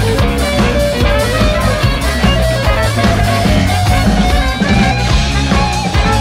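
Live band playing an instrumental passage in an upbeat funk-rock groove, with electric guitars, electric bass, drum kit and trumpet.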